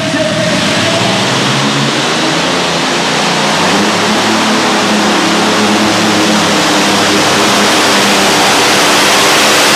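Multi-engine Light Modified pulling tractor, Green Monster V, running its supercharged engines hard as it takes up the chain and pulls the sled, the noise building steadily louder.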